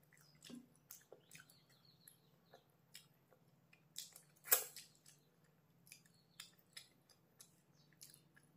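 Close-up mouth sounds of a person eating by hand: scattered wet chewing clicks and lip smacks, with one louder smack about four and a half seconds in.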